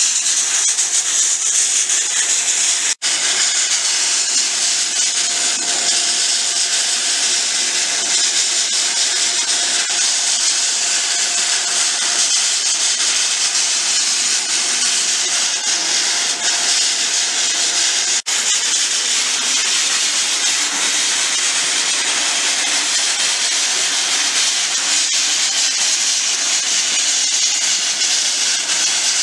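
Abrasive blasting nozzle fed from a blast pot, blasting steel pipe with a loud, steady high hiss of compressed air and grit. The hiss cuts out briefly twice.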